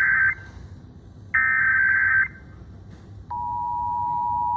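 Emergency Alert System broadcast tones: two harsh electronic data bursts of the SAME header, one ending just after the start and another about a second and a half in, each lasting about a second. About three seconds in, the steady two-tone EAS attention signal starts and holds, marking the start of a nationwide EAS test.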